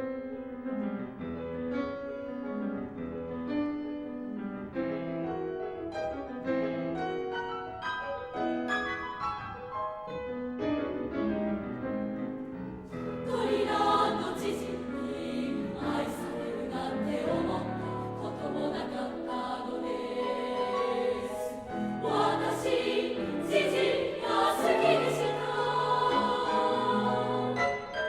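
Three-part girls' chorus with piano. The piano plays alone for roughly the first half, then the voices come in with crisp sung consonants and carry on over the piano.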